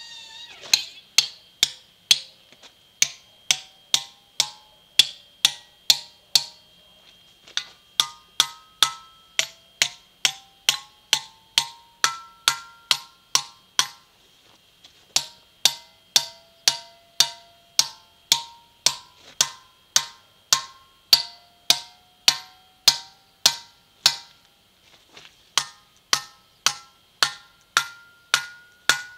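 Hammer striking steel feathers and wedges set in a line of drilled holes in a marble block: a steady run of sharp metallic blows, about two a second, with a short pause about halfway through. The wedges ring with a pitch that climbs over successive blows as they are driven tighter, building pressure to split a corner off the block.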